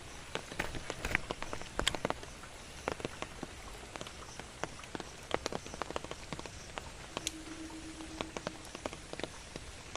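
Heavy rain falling, with a steady hiss and many irregular sharp taps of drops striking a hard surface. About seven seconds in, a low steady tone sounds for about a second and a half.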